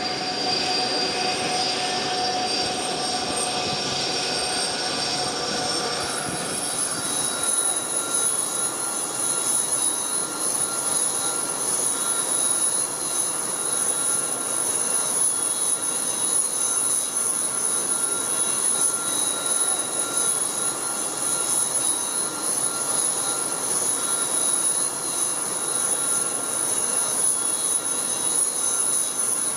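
Jet airliner's turbine engines running: a steady high whine over a continuous rushing noise, which changes in character about six or seven seconds in.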